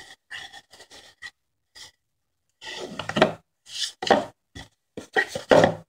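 Small cardboard boxes handled and slid across a tabletop: a few faint taps at first, then, from about halfway through, a run of rubbing and scraping sounds.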